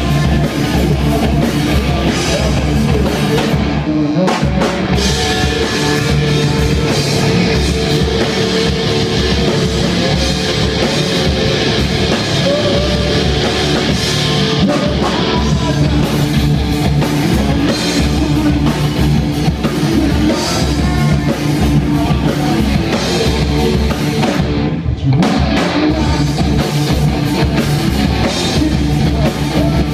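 Live rock band playing loudly: electric guitars, bass guitar and a drum kit, with a vocalist singing into a microphone. The cymbals and high end briefly drop away twice, about four seconds in and again near the end.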